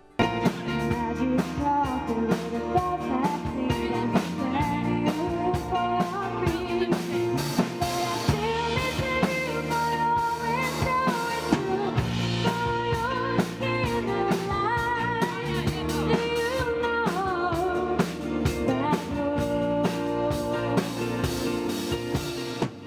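A woman singing a song into a microphone, backed by a band with guitars and drums.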